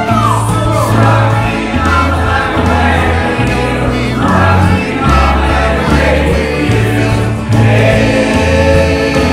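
Karaoke music played loud over a PA: a backing track with a bass line stepping between notes, and singing over it.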